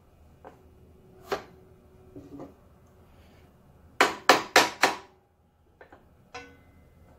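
Metal clicks and knocks from hands and a T-handle hex wrench working at the miter table of a Delta 10-inch compound miter saw. A few light knocks, one with a faint ring, then four sharp clicks in quick succession about four seconds in, then a few lighter clicks.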